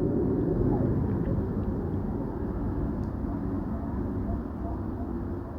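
Low, steady rumble of a distant aircraft overhead, slowly fading.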